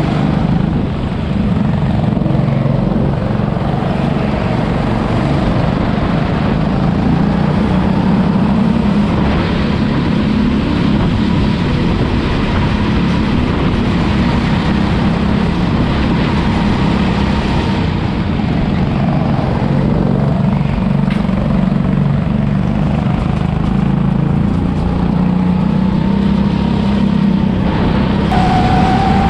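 Rental go-kart engine heard from onboard at racing speed, running continuously with its note drifting up and down through the corners.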